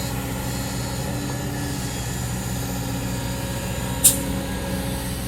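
Isuzu ten-wheel truck's diesel engine running steadily, with one short sharp air hiss from its air brakes about four seconds in.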